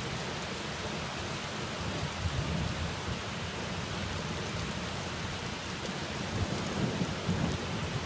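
Steady rain, with a low rolling rumble of thunder underneath that swells near the end.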